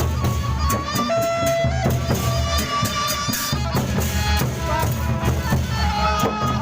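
Gendang beleq ensemble playing: big drums beating a dense, driving rhythm under clashing cymbals, with a held high melody line moving between a few pitches.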